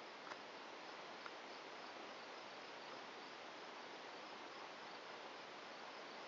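Near silence: faint steady hiss of room tone, with two faint ticks in the first second and a half.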